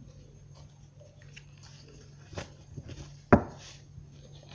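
Tarot cards being handled over a cloth-covered table: a few soft taps and rustles, then one sharp tap a little over three seconds in.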